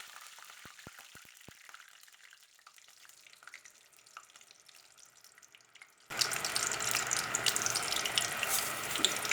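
Vinegar, honey and soy sauce cooking in a hot pan: after a quiet stretch with a few faint clicks, loud sizzling with crackles starts abruptly about six seconds in.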